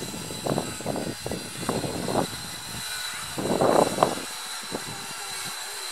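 Wind gusting across the camera's built-in microphone, rumbling in irregular bursts, with the strongest gust about three and a half seconds in.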